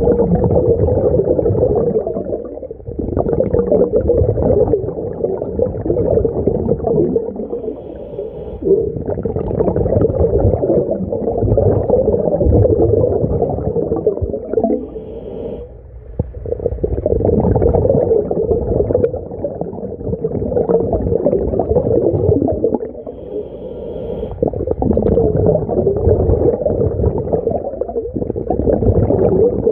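A diver breathing through a SMACO mini scuba tank's regulator, heard through water: a short hiss on each inhale, then a long, muffled bubbling rumble of exhaled air. The breaths repeat every several seconds.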